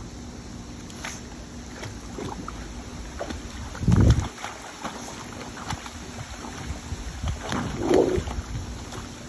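Water splashing and sloshing as two dogs paddle and play-wrestle in a pool, with two louder splashes about four and eight seconds in.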